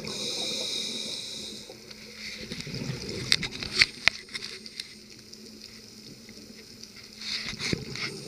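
Scuba diver breathing through a regulator underwater. A high hiss of inhalation lasts about two seconds, then exhaled bubbles crackle and pop, with another breath and more bubble pops near the end.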